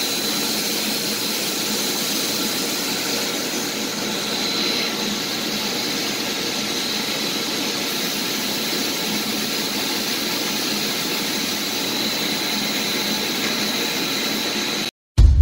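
Steady machinery running noise with a faint high-pitched whine. It cuts off just before the end and music starts.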